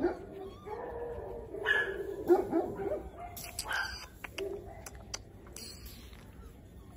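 Giant Schnauzer puppy giving a few short, high barks and whines over the first three seconds, the loudest bark about two and a half seconds in, followed by several sharp clicks.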